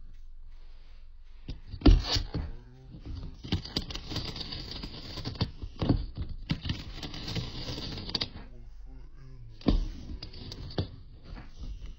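A cat gnawing and biting at an edge: a run of small clicks and crunching scrapes from its teeth. There is a sharp knock about two seconds in, and denser crunching in the middle and again near the end.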